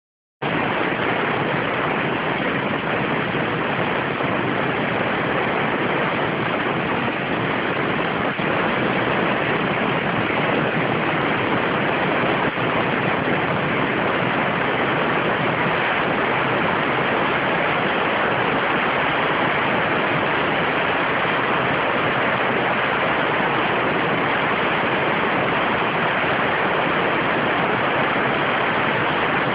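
CNC waterjet cutter's high-pressure jet cutting through 70 mm thick stainless steel, a loud steady hiss with no rhythm or change in pitch.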